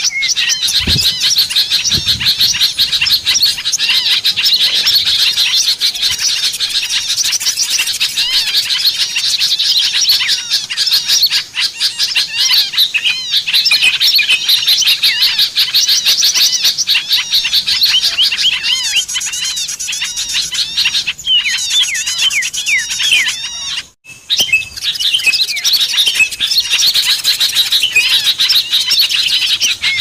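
A dense, mixed chorus of small songbirds, bulbuls and flycatchers, chirping and twittering rapidly over one another, as in a looped bird-lure (pikat) recording. There is a brief break about three-quarters of the way through, and the chorus resumes straight after.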